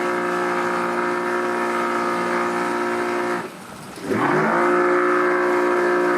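Boat engine under heavy throttle, power loading onto a trailer: held at a steady high pitch, throttled off about three and a half seconds in, then revved straight back up and held until it cuts off at the end.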